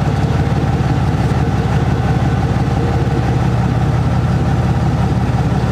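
An engine idling steadily, with a fast, even low pulse.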